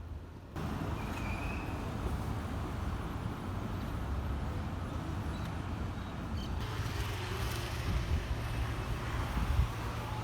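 City street noise with traffic: a steady low rumble and hiss that cuts in suddenly about half a second in and changes character about two-thirds of the way through.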